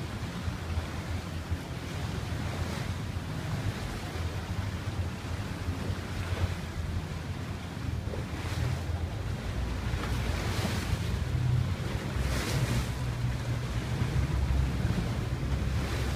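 Wind buffeting the microphone over a steady rush of water, with louder washes about eight, ten and twelve seconds in.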